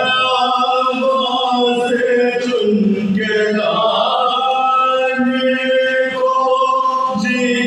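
Several men chanting a soz, the Shia Muharram lament, together in unison without instruments, on long held notes whose pitch shifts now and then.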